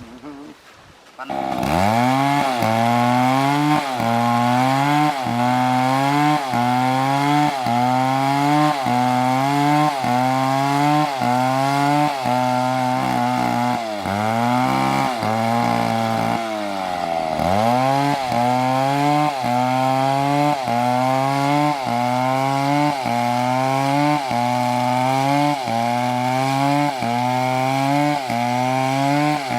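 Two-stroke chainsaw starts cutting about a second in and runs under load through wood. Its engine note dips and climbs back about once a second as the chain bites, and twice near the middle it drops lower and revs up again.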